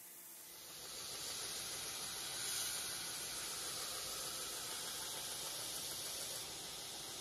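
Steel knife blade pressed against the running abrasive belt of an Amerigrade belt grinder, a steady grinding hiss as the bevels are finish-ground after heat treat. It sets in about half a second in and eases off slightly near the end.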